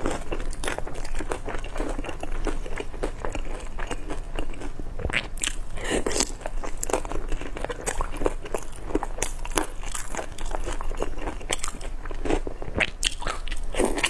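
Close-miked chewing and biting of small pan-fried buns (shengjian bao), with crisp crunches and sharp mouth clicks coming irregularly throughout.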